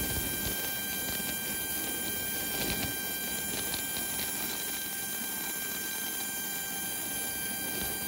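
Embraer jet's auxiliary power unit (APU) running with a steady, high-pitched turbine whine, over an uneven low rumble.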